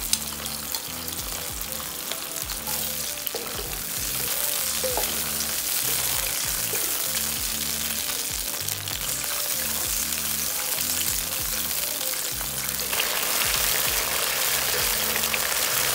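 Sweet-and-sour sauce sizzling and bubbling in a non-stick wok with shallots and oil, a spatula stirring through it. The sizzle grows louder about four seconds in and again near the end as the sauce comes to a vigorous boil while it reduces.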